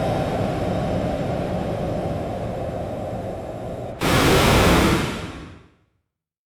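Subway train noise: a steady rumble for about four seconds, then an abrupt change to a louder rushing noise that fades out over the next two seconds.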